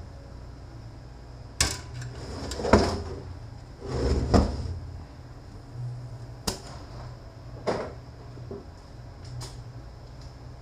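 Irregular sharp knocks and clinks of hand tools and small metal transfer-case parts being handled and set down on a workbench, with brief scraping between them.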